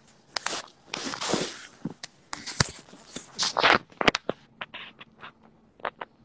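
Close rustling and scraping handling noise on a phone's microphone, in irregular bursts with scattered sharp clicks.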